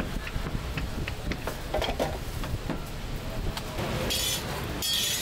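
Scallion pancakes frying on a hot griddle: sizzling with frequent clicks and clatter of cooking utensils over a steady low rumble, and two louder bursts of hissing near the end.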